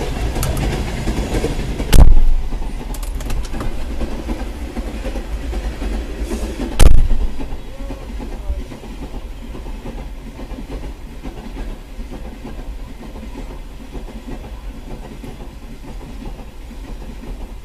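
Freight train of open wagons passing over a level crossing, its wheels rumbling and clattering steadily on the rails, heard from a car stopped at the crossing. Two loud thumps, about five seconds apart, stand out over it; the train noise is somewhat quieter after the second.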